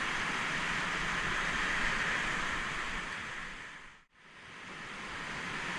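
Steady rush of fast river water. The sound fades out to a moment of silence about four seconds in, then fades back up.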